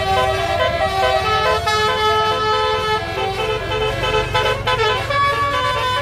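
Bus 'basuri' telolet horn, a multi-trumpet air horn, playing a tune of changing notes several times a second, over a steady low rumble.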